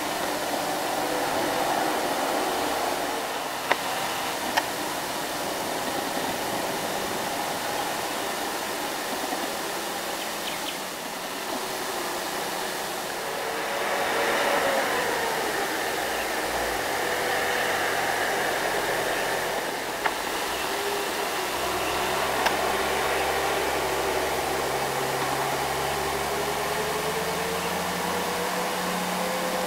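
Loaded light diesel trucks driving through a hill-road bend: a steady hiss with an engine note that slowly rises and falls, and a deeper engine sound growing over the last few seconds as a truck comes closer. A few short clicks.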